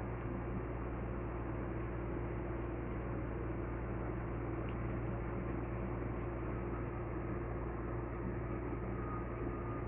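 Steady low mechanical hum with hiss, and a few faint clicks near the middle.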